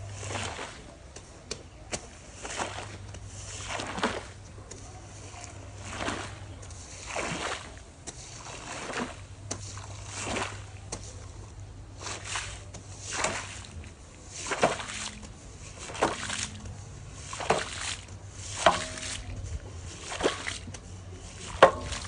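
Rubber squeegee dragged in repeated strokes through a soaked shag rug, squeezing water and foam out of the pile: a wet swishing scrape about every second and a half, many strokes ending in a sharp click, over a low steady hum.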